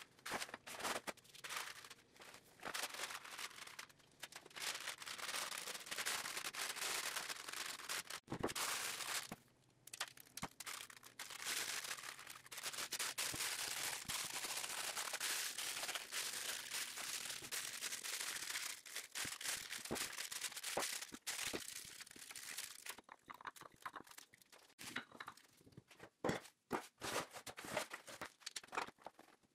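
Plastic sheeting and paper crinkling and rustling as they are folded and wrapped by hand, with a sharp knock about eight seconds in and a few more near the end.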